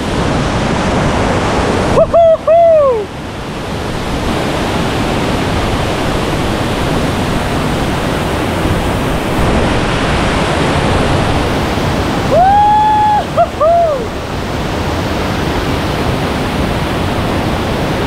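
Waterfall cascading over rock slabs: a steady, dense rush of water. A man's voice calls out briefly twice, about two seconds in and again about twelve seconds in, over the rush.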